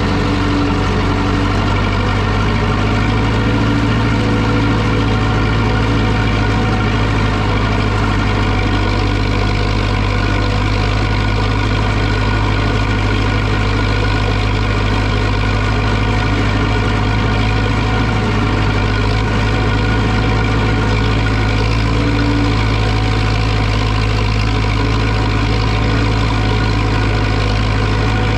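Zetor 6245 tractor's four-cylinder diesel engine running steadily at an even speed.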